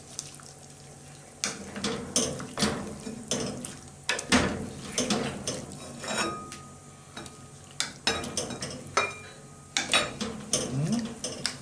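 Wooden spoon stirring chunks of beef shank in broth in a metal pot, knocking and scraping against the pot at irregular intervals.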